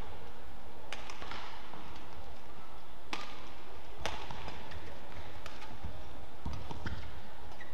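Badminton rally: rackets striking the shuttlecock in about five sharp hits, a second or two apart, over a steady low arena hum.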